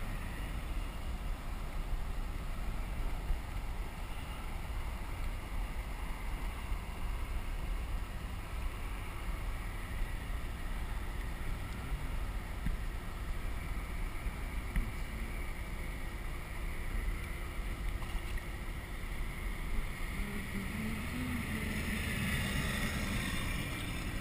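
Steady rush of wind and river water around a fishing kayak.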